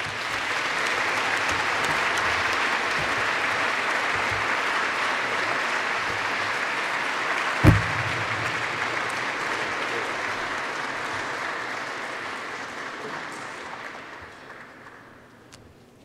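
Audience applauding steadily, then dying away over the last few seconds. A single thump sounds about halfway through, the loudest moment.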